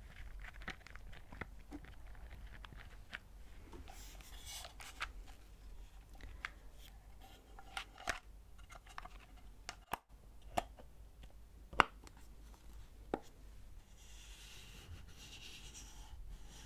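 Fingers handling small wooden alphabet stamps in their wooden box: scattered light clicks and taps, the sharpest about twelve seconds in, with soft rustling about four seconds in and again near the end.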